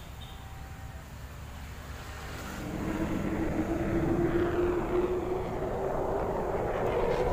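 Jet engines of a low-flying formation of fighter jets approaching. Their noise comes in about two and a half seconds in and grows steadily louder, with a steady droning tone under a broad rush.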